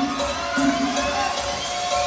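Punjabi bhangra music playing, with steady held melody notes, and some crowd noise and cheering from the watching guests.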